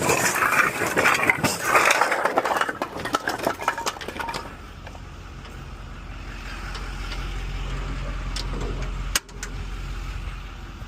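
Rough clattering and knocking for the first four seconds or so, then a steady low engine hum, with one sharp click about nine seconds in.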